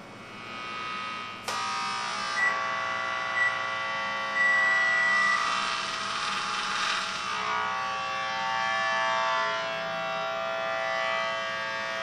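IMC (a)EMF II audible electromagnetic field detector turning picked-up fields into a steady electronic buzz of several tones. About a second and a half in, a click is followed by the buzz getting louder, and a high steady tone comes and goes in the middle. The buzz is electromagnetic interference that the user puts down to fluorescent lights on the floor below.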